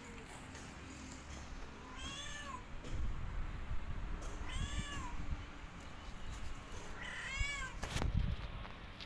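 A kitten meowing three times, short high-pitched mews about two and a half seconds apart, each rising then falling in pitch. A low rumbling noise sits underneath from about three seconds in, with a sharp click near the end.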